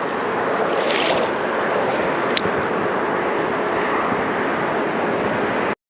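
Steady rushing noise of creek water mixed with traffic noise from the nearby highway, with a brief swell about a second in and one sharp click a little after two seconds.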